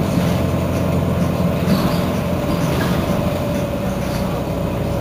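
Heuliez GX 327 city bus's diesel engine running steadily, with a thin steady whine above the engine note.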